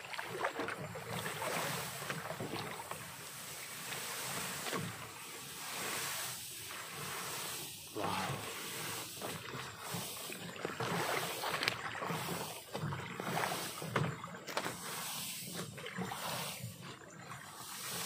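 Tall grass swishing and rustling against the phone as someone pushes through it, in quick irregular brushes.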